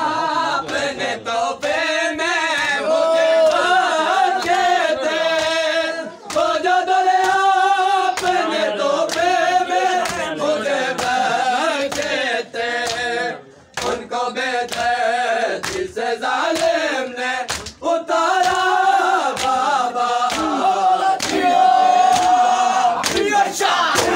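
Men's voices chanting a Muharram mourning lament (noha) in a sung, wavering melody, line after line with short breaks between lines.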